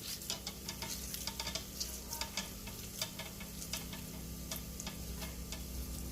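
Syrup-coated boondi being squeezed and rolled into ladoo balls by hand: irregular soft clicks and crackles, over a low steady hum.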